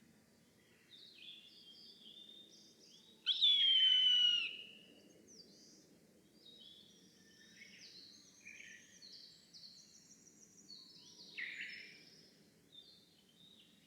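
Eastern buzzard giving one loud, drawn-out call that falls in pitch, about three seconds in. Small songbirds sing faint, high chirps and trills throughout, over a steady low rumble of background noise.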